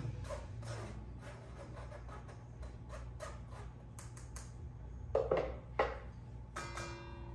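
A spoon scraping and pressing almond flour and powdered sugar through a sieve in quick repeated strokes. Then come a few knocks, two of them louder, and a last tap near the end that leaves a brief ringing.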